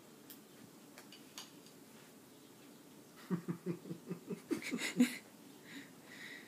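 A woman laughing in a quick run of short bursts for about two seconds, past the middle. Before that there are only faint light ticks and rustles from the cats wrestling on the carpet.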